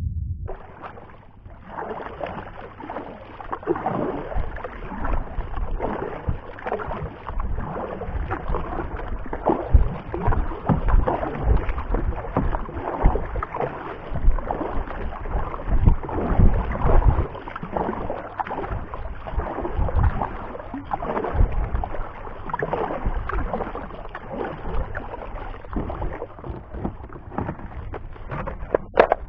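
A kayak moving on the water: irregular splashing and sloshing against the hull, mixed with dull knocks and handling noise on the action camera.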